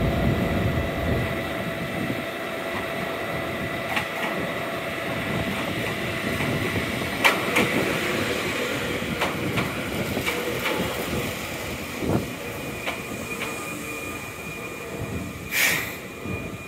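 Gakunan Railway electric train running: a steady rumble with a thin, steady high squeal, scattered sharp knocks, and a short hiss near the end.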